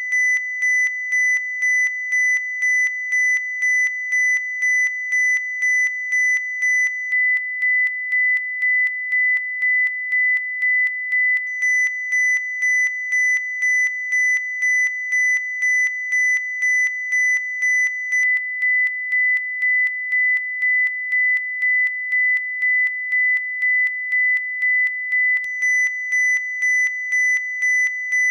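2 kHz sine-wave test tone switching abruptly back and forth between two levels, with a faint click at each step in level: the over-slew caused by the abrupt amplitude change. Faint higher overtones come and go twice, as a slew-rate processing plugin alters the tone.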